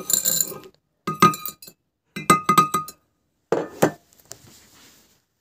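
Small pebbles poured from a metal spoon into a glass jar, clattering and clinking against the glass with a short ringing after each pour. It comes in four short bursts, with a brief gap between them.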